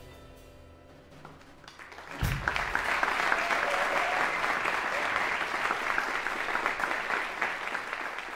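Last notes of a jazz piano trio dying away, with piano and double bass ringing out and fading. About two seconds in, audience applause breaks out suddenly and carries on steadily.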